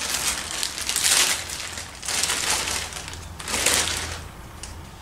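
Clear plastic wrapping crinkling in several bursts as it is pulled off a boxed LED light, dying down near the end.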